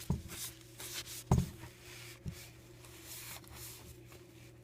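Paper towel wiping and rubbing over the inside of a MacBook's lid, with a few short knocks, the loudest about a second in, over a steady low hum.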